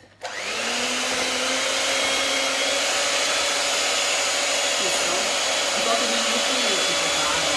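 Electric hand mixer switching on a moment in and then running steadily, its beaters whisking chocolate batter in a glass bowl. Its pitch rises briefly as the motor comes up to speed, then holds a steady whir.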